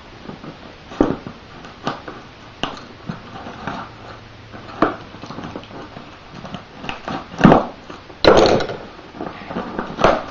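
Taped cardboard shipping box being cut and pulled open: irregular clicks and scrapes from the knife and tape, the loudest a sharp knock and a short rasp about three-quarters of the way through. It is wrapped in three layers of tape.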